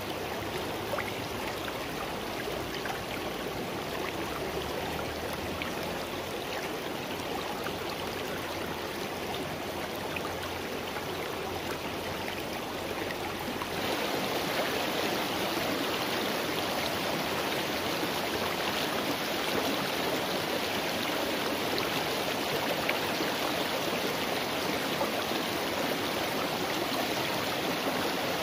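Shallow mountain stream running steadily over rocks, a little louder from about halfway in.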